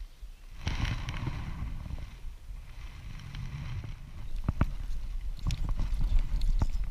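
Handling noise in a small inflatable boat: a rushing burst about a second in, low rumbling throughout, and several sharp clicks and knocks in the second half as the spinning rod and reel are handled.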